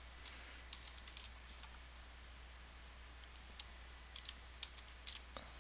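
Faint typing on a computer keyboard: scattered key clicks in small clusters.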